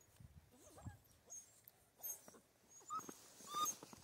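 Six-week-old Central Asian Shepherd puppies whimpering while they suckle from their mother, with short high squeaks that grow more frequent and louder in the second half.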